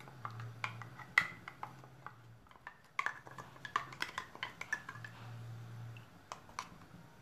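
Irregular sharp clinks and taps of a metal bowl and spoon against a clay cooking pot as a roasted rice and coconut mixture is scraped in, with a few ladle knocks against the pot near the end as the curry is stirred.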